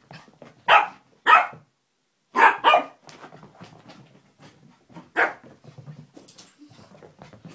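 Small dog barking in short, sharp single barks: two about a second apart early on, a quick pair around two and a half seconds in, and one more past five seconds.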